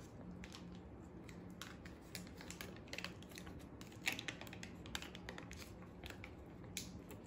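Foil cream cheese wrapper crinkling as it is torn and peeled off the block by hand: faint, irregular crackles.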